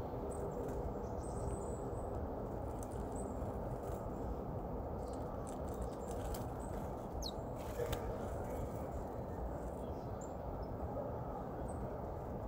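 Great tits giving a few thin, very high, short calls, one a quick falling note about seven seconds in, with a few faint clicks near the middle. All this sits over a steady low rumble of background noise, which is the loudest sound.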